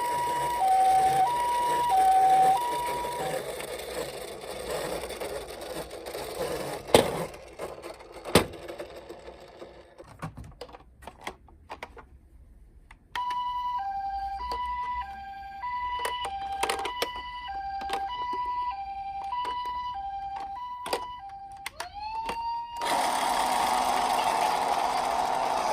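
Toy ambulance's electronic two-tone hi-lo siren, alternating a high and a low tone about every half second. It stops after a few seconds and comes back later with clicks over it. A noisy stretch with two sharp knocks lies between. Near the end a siren rises in pitch and holds a steady wail.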